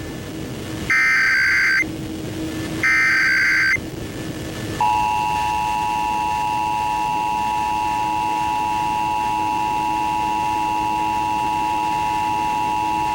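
Emergency Alert System tones relayed over FM radio for a national EAS test. The last two of the three SAME header data bursts each last about a second. After a short pause, about five seconds in, the steady two-tone EAS attention signal starts and holds to the end.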